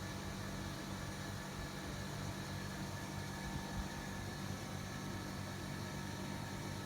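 A 28-inch Sivicom mini ceiling fan running steadily: an even motor hum under the rush of air from its blades.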